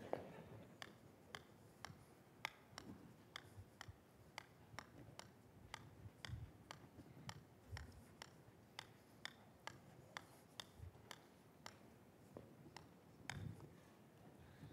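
Faint, regular clicks about two a second, the footsteps of a man walking slowly, over a quiet room hush.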